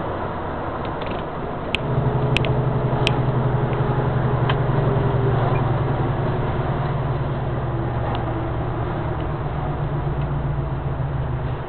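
Truck engine heard from inside the cab while driving: a steady low drone that gets louder about two seconds in and holds, with a few sharp clicks and rattles from the cab around that moment.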